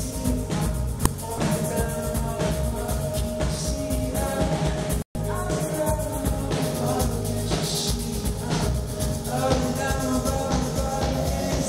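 Rock band playing live: drum kit, electric guitar, bass and keyboards with a singer. The sound drops out completely for an instant about five seconds in.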